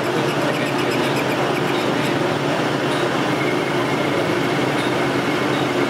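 Metal lathe running with a steady mechanical drone. A rapid, high ticking rides on it for about the first two seconds, then stops.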